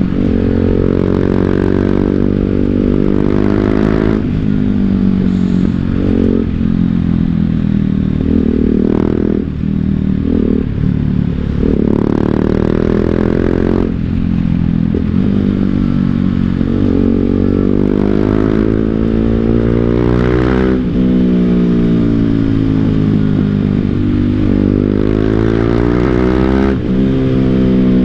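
BMW G 310 GS single-cylinder engine through an Akrapovič full-system exhaust, ridden under load: the engine note climbs, drops sharply at a gear change, and climbs again, many times over as the bike accelerates and shifts.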